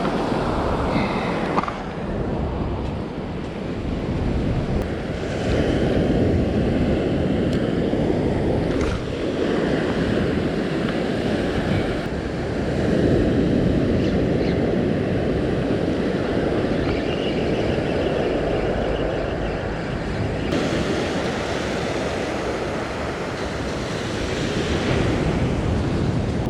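Surf breaking and washing up the beach as a continuous rushing noise that swells and eases every few seconds, with wind buffeting the microphone.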